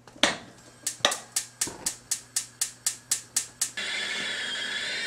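Gas stove burner's spark igniter clicking rapidly, about four clicks a second, to light the flame under a stovetop kettle. Then a steady hiss with a faint wavering high whistle from the kettle starting to boil.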